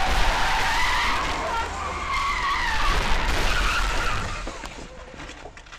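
Car tyres screeching in a hard skid, a wavering high squeal for about four seconds, then fading out with a few short knocks as the crash plays out.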